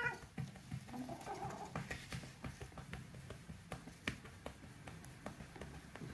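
Hands patting and rubbing a cat's fur: soft, irregular pats and rustles.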